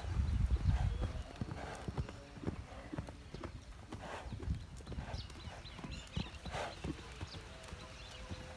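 Hoofbeats of a Marwari horse cantering loose on sand, with a loud low rumble in the first second or so.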